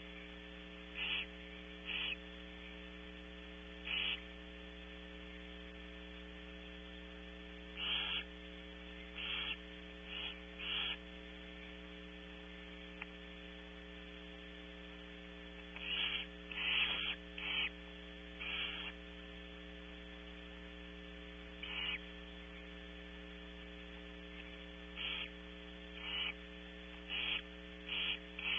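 Barn owls giving short hissing calls, repeated irregularly and sometimes in quick clusters, the begging calls heard at a nest during a feeding. A steady electrical hum from the nest camera runs underneath.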